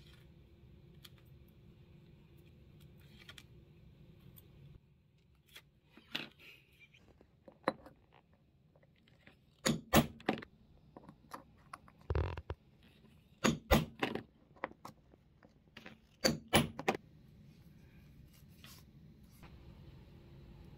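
A steel eyelet-setting punch struck on a round steel anvil to set metal eyelets in a strap: sharp metallic strikes in short groups of two or three through the middle. Before and after, light clicks and clinks of small metal parts being handled.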